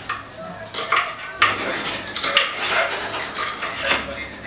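Kitchen knife slicing tomatoes and green pepper on a ceramic plate, the blade knocking and clinking against the plate at irregular intervals, roughly once a second.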